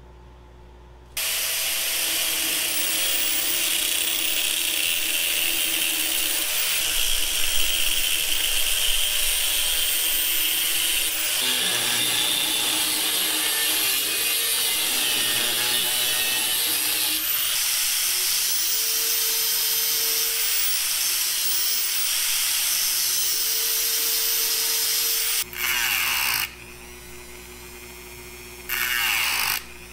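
Corded angle grinder with an extra-thin cut-off wheel cutting through square steel bar: a steady high whine with a grinding hiss. It starts about a second in. Near the end it drops to a quieter stretch of about two seconds, as a Dremel rotary tool works the bar.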